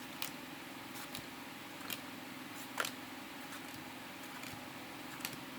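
Yu-Gi-Oh trading cards being handled and shown one after another, giving a few faint clicks and snaps of card against card, over a steady low hum.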